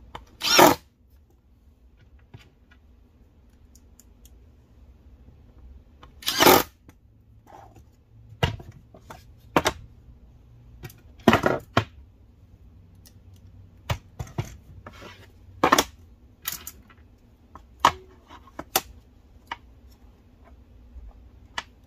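Ridgid Octane cordless impact driver in two short bursts, about half a second in and again about six seconds in, driving screws into a drawer slide. After that come scattered short clicks and knocks of metal drawer slides being handled and set against the cabinet side.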